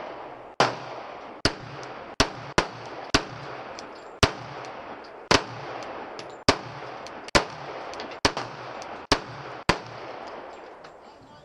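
Handgun shots being fired one at a time, about a dozen at an uneven pace of roughly one a second, each with a short echo.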